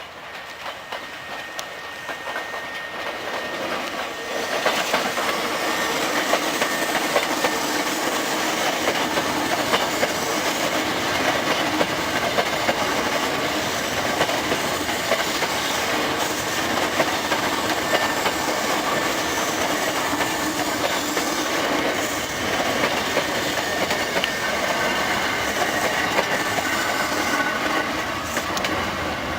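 An eight-car Hankyu electric train running past on the rails. The sound builds over the first few seconds, then holds as a loud, steady rumble with rapid wheel clatter over the rail joints, and eases off near the end.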